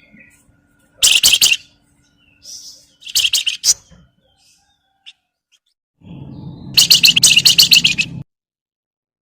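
Javan fulvetta (wergan Jawa, called 'flamboyan' by bird keepers) giving its rapid chattering 'crecetan' call in three bursts of quick high chirps, the last and longest near the end.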